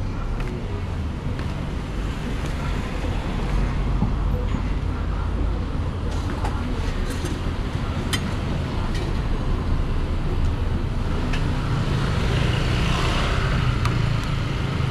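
Steady low rumble of passing street traffic, with a few sharp metallic clicks of a steel spatula on a flat roti griddle.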